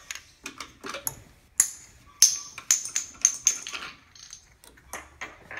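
A quick run of hard clicks and clinks, several with a short metallic ring, as the clear plastic valve body and stainless dispense handle on a Crathco barrel freezer are handled and worked loose for removal. The clicks come thickest and loudest in the middle of the stretch.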